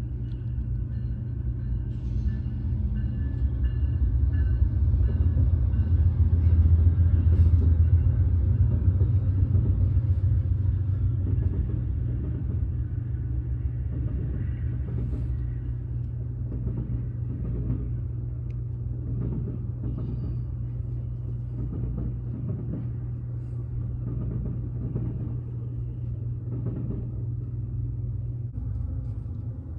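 Amtrak passenger train hauled by two GE P42DC diesel locomotives rumbling past, loudest several seconds in as the engines go by. It then eases off into a run of clacks as the passenger cars roll past.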